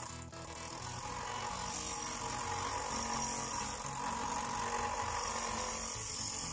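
Bench grinder (Parkside PDOS 200 B2) running with a steel workpiece held against its grinding wheel, giving a steady grinding hiss.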